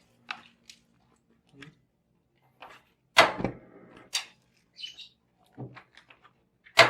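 Kitchen clatter of cookware being handled: scattered light knocks and clicks, with a sharp bang about three seconds in that rings briefly and another near the end.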